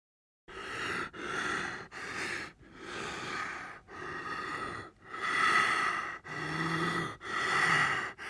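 Heavy breathing: a string of about nine breaths in and out, starting about half a second in and growing a little louder after the middle.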